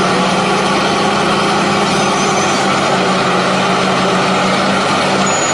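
Steady engine running sound, loud and unchanging, with a constant low hum under a dense rumble.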